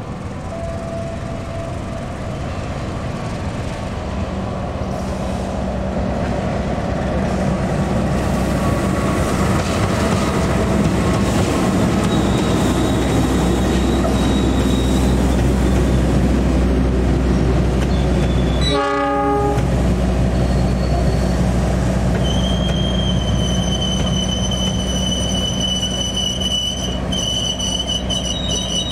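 A train passing close by: the rumble of the locomotive and wagons on the track grows louder over the first several seconds and then holds steady. About three-quarters of the way through, a high, steady squeal of wheels on the rails sets in.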